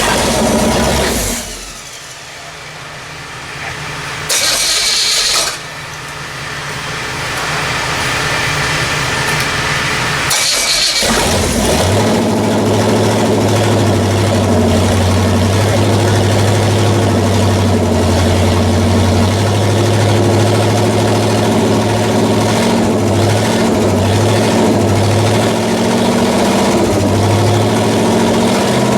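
Rebuilt Pontiac 400 V8 being cranked in short bursts, then catching about eleven seconds in and running at a steady speed for a flat-tappet camshaft break-in.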